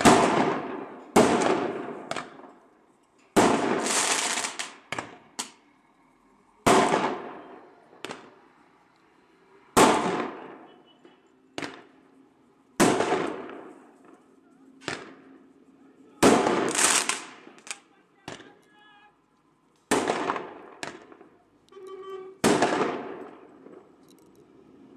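Firecrackers going off in an irregular string of about twenty sharp bangs, some in quick clusters of two or three. Each bang rings out with a trailing echo.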